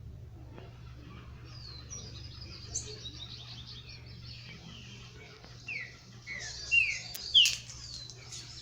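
Birds chirping: a run of short, quick downward-sweeping chirps, getting louder in the second half with a few loud close chirps near the end. A steady low hum sits underneath.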